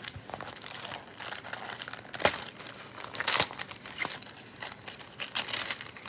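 Gift wrapping paper being torn and crumpled off a boxed DVD, crinkling in irregular bursts with a sharp crackle about two seconds in.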